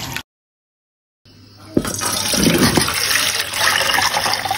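A brief slosh of hands working rice in water, cut short by a second of complete silence. Then cloudy rice-rinse water is poured from one pot into another, a steady splashing pour from about two seconds in.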